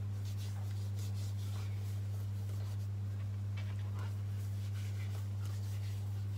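Hands rubbing tapioca starch over small raw short mackerel, giving soft, faint rubbing and rustling that comes and goes, over a steady low hum. The starch rub is a step to take away the fishy smell.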